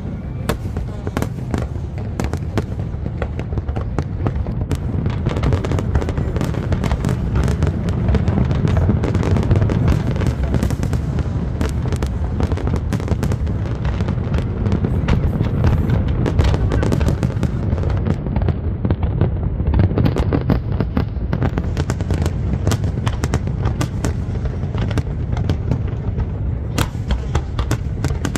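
Fireworks display in full barrage: a continuous rumble of booming aerial shells with many sharp cracks and crackles, densest in the middle.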